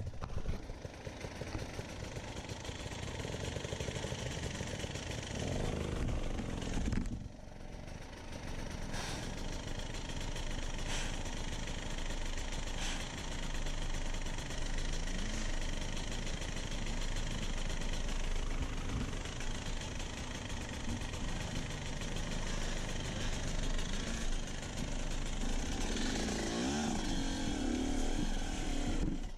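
Enduro dirt bike engines running on a rocky trail, the revs rising and falling as the throttle opens and closes; the sound drops briefly about seven seconds in.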